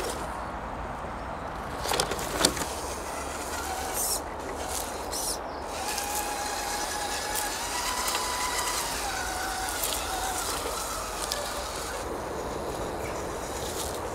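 Whine of a radio-controlled Axial Honcho crawler's brushed electric motor and gears, shifting in pitch as the throttle changes and heard most in the second half. Two sharp knocks come about two seconds in.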